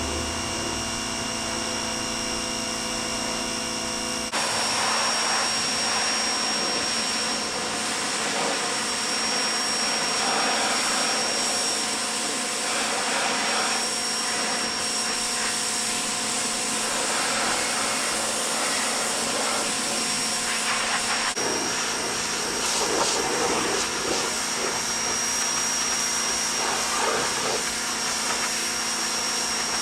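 Pressure washer running and spraying water to clean moss off a hay baler. A steady motor hum for the first few seconds, then the loud hiss of the water jet starts abruptly about four seconds in and runs on with a steady high whine.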